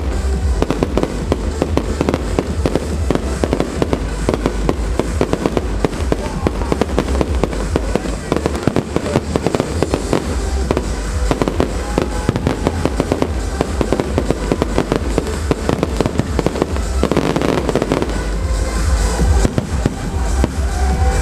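Aerial fireworks shells bursting and crackling in rapid, continuous succession, with the show's accompanying music playing underneath.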